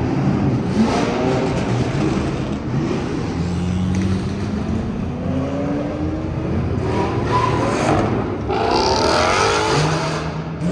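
Car engines running and revving, with the engine note climbing steadily in pitch as a car accelerates about four seconds in, and another rising surge near the end.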